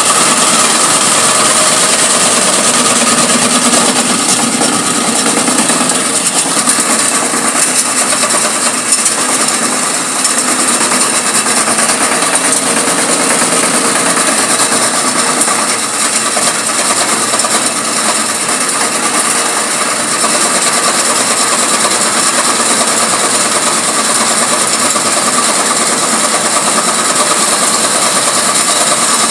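Screw conveyor running: its electric motor and auger turning with a steady mechanical whir and high hiss, with small rattles as loose material is fed into the hopper.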